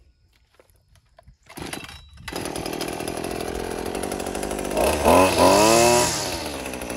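Maruyama BT230L gas string trimmer's small two-stroke engine being pull-started: it catches about two seconds in and runs, then revs briefly around five seconds in, its pitch rising and then falling back to idle.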